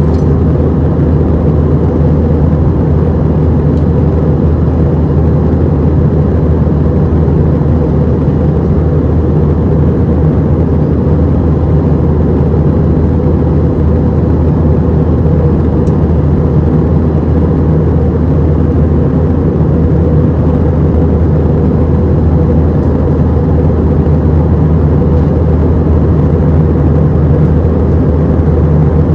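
Steady, unchanging drone of an Airbus A319-100's jet engines and airflow heard inside the passenger cabin, a deep hum with a rushing noise over it.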